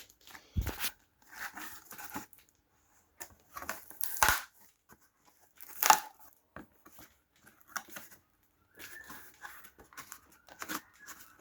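Cardboard box and packing being opened and handled: scattered knocks, with rustling and tearing of packaging in between; three knocks stand out, about a second in, past four seconds and near six seconds.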